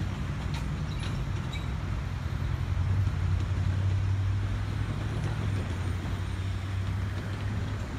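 A heavy engine running steadily with a low drone that swells a little about three seconds in, with a few faint clicks near the start.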